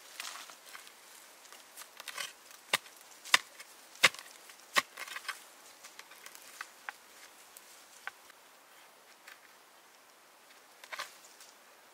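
Sharp chopping strikes from a tool: four strong blows about two-thirds of a second apart in the first half, with lighter knocks and rustling between them and one more knock near the end.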